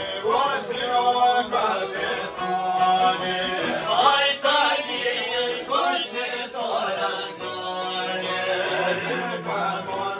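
Traditional Albanian men's folk song: a male voice singing in long, gliding, ornamented phrases over strummed long-necked folk lutes that hold a steady drone underneath.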